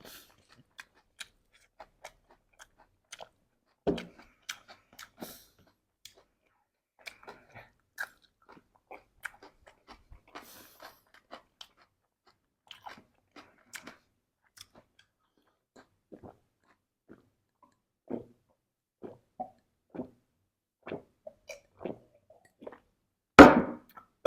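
Close-up chewing and crunching of chatpate, a spicy mix of crisp puffed rice and sev: scattered short, crisp crunches with gaps between them. Near the end comes one loud, short burst of noise.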